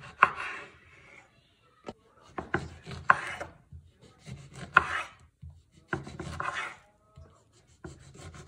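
Kitchen knife slicing through oranges and knocking down onto a wooden cutting board: a series of separate cuts, each a short rasp of the blade through peel and flesh ending in a tap on the board, with short pauses between them.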